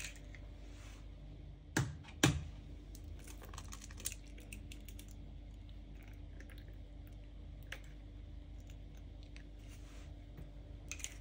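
An egg knocked sharply twice against the rim of a mixing bowl to crack it, about two seconds in, followed by faint light clicks of the eggshell halves as the yolk is passed between them to separate the white.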